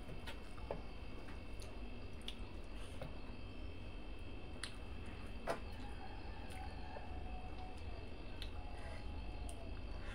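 Bare fingers mixing rice and curry on a steel plate: soft wet squishing with scattered light clicks, one sharper click about five and a half seconds in, over a steady low background hum.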